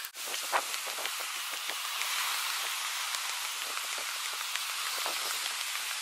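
A steady, even hiss with scattered light ticks and taps. It dips out briefly just after the start.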